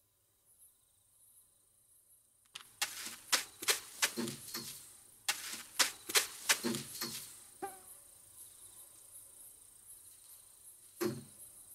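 Wire-mesh cage fence rattling in a fast run of sharp knocks for about five seconds as a Eurasian eagle-owl grabs at the birds through it, with one more knock near the end. Crickets chirp steadily throughout.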